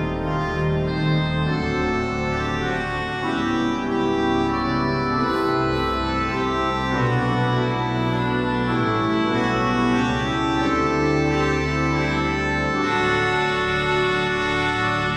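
Church organ playing slow, sustained chords that change every second or two, at a steady level.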